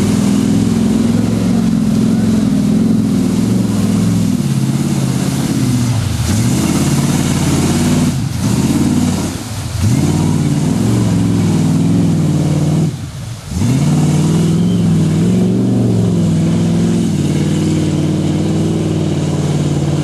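Chevy K5 Blazer's engine revving hard under load as it churns through mud and water. Its pitch drops sharply and climbs again about four times as the throttle is lifted and reapplied.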